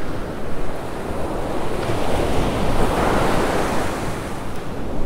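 Ocean surf breaking and washing up the sand, one wash swelling to its loudest about three seconds in, with wind buffeting the microphone.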